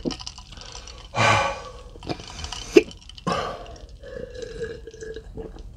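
Two short breathy mouth sounds close to the microphone, about two seconds apart, with a sharp small click between them: sounds of a person eating and drinking.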